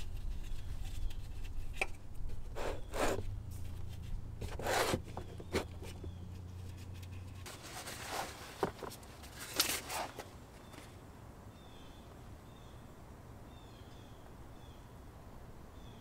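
A string of short rustles and scrapes from disposable-gloved hands working the oil drain bolt out under a car, most of them in the first ten seconds, over a low steady hum that stops about halfway through. Faint bird chirps come in near the end.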